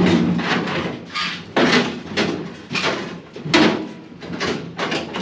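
A large sheet-steel trunk floor pan with its wheel tubs attached banging and scraping against the car body as it is forced into a tight opening: a run of irregular metal clunks and scrapes.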